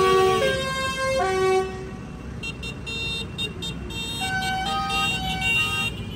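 Tractor engines running as a line of tractors drives past. Over them a tune of held, stepping notes plays loudly for the first second and a half, then goes on fainter and higher.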